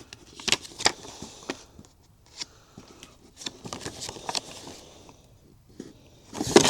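Irregular clicks and short scrapes of tire levers and hands working the tire of a 20 x 4 inch fat-tire e-bike wheel off its rim, going quieter for a stretch near the end.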